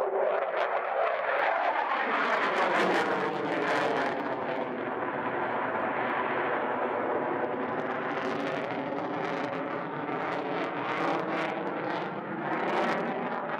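Jet noise of a Belgian Air Force F-16 flying its display overhead: a steady rushing sound laced with tones that slowly rise and fall as the fighter moves across the sky.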